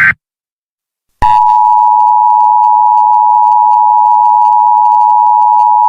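Emergency Alert System tones: the tail of a warbling SAME digital header burst, a second of silence, then the EAS attention signal starting about a second in, a loud steady two-tone beep (853 Hz and 960 Hz sounded together).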